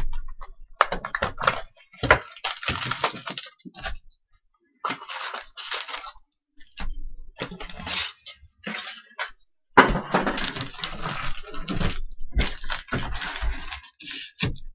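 Trading-card packaging being torn open and handled: repeated crinkling and tearing of wrappers and cardboard in irregular bursts with short pauses between them.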